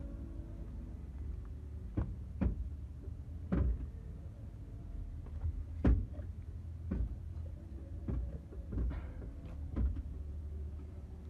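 Irregular knocks and clunks, about ten over the stretch, sharp and spaced a second or so apart, over a low steady rumble.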